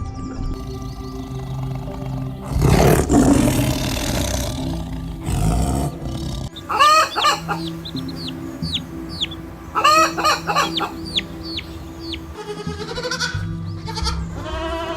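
Chickens calling, with two loud calls about seven and ten seconds in and short chirps between, over steady background music. A loud burst of noise comes about three seconds in.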